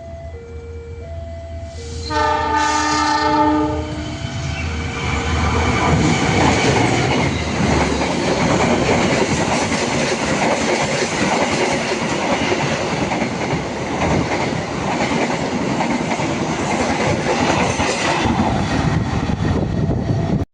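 A level-crossing alarm alternating between two tones, then about two seconds in a train horn sounds for about a second and a half, and a train passes close by with loud, steady running noise of wheels on the rails until the sound cuts off suddenly.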